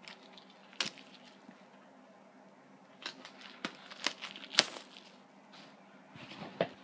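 Packaging being handled: scattered crinkling and crackling, busiest from about three to five seconds in.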